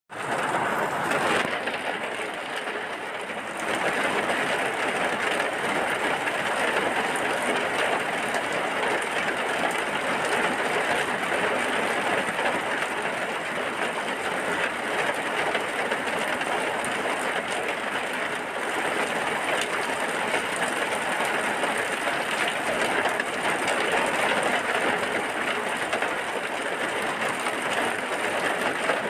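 Heavy rain falling steadily: a dense, even hiss of rainfall with no breaks.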